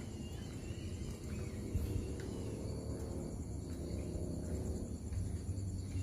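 Night ambience: a steady high insect drone over a low rumble, with a faint, indistinct wavering sound from the forest that is hard to make out and is heard as a crowd of people.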